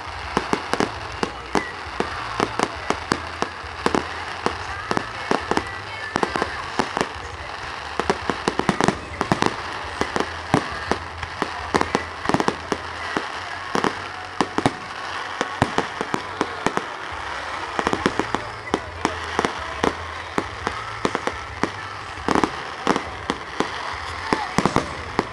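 Fireworks display: a continuous barrage of sharp bangs and crackling explosions, many in quick succession, over a murmuring crowd.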